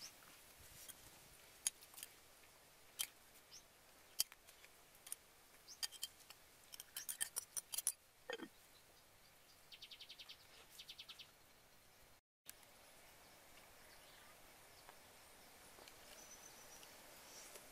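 Scattered light clicks and taps of dishes and utensils being handled on a mat, with a short quick run of high chirps about ten seconds in.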